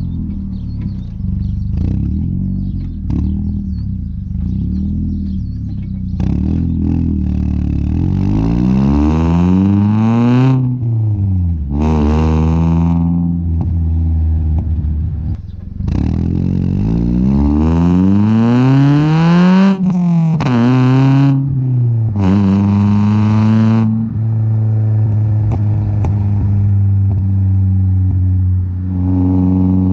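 Exhaust of a 1999 Toyota Altezza's 3S-GE 2.0-litre four-cylinder, heard right at the tailpipe. It runs low and even at first, then twice accelerates hard with the pitch climbing for a few seconds and dropping back sharply each time, and about two-thirds of the way through settles into a steady low drone.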